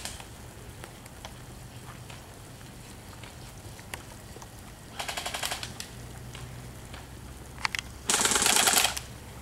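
Airsoft electric guns firing full-auto bursts of rapid clicking shots: a short burst about five seconds in, two single shots a little before eight seconds, then a louder burst of nearly a second near the end.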